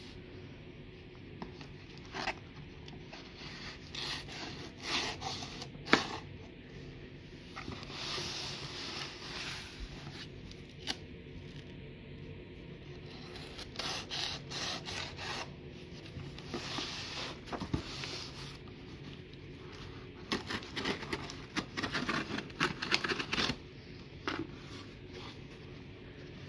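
Utility knife slitting the packing tape on a cardboard box, with cardboard scraping and rubbing as the box is handled and its flaps are pulled open. The scratchy noise comes in irregular bursts, with a few sharp clicks and knocks.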